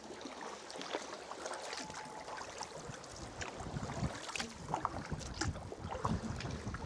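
Sea kayak being paddled through calm water: paddle blades dipping and dripping, with small scattered splashes and water lapping against the hull.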